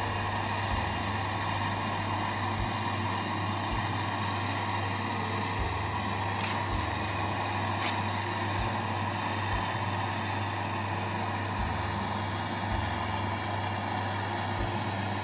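Handheld gas torch burning steadily with a constant hiss while a copper pipe joint is brazed.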